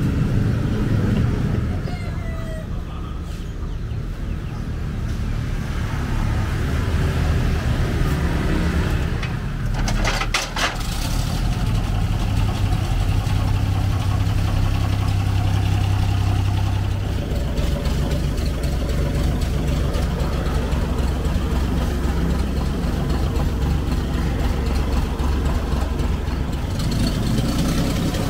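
ZIL-164 truck's six-cylinder petrol engine running with a steady low rumble. A short burst of clicking comes about ten seconds in, after which the engine note is strongest for a few seconds.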